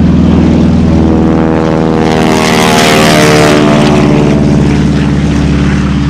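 North American AT-6 Texan's nine-cylinder Pratt & Whitney R-1340 radial engine and propeller running at high power as it passes close by, the pitch dropping about two to four seconds in as it goes past.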